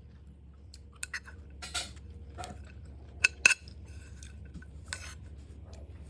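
Utensils and dishes clinking at a meal: scattered light clicks and clinks, with two sharper clinks a little over three seconds in.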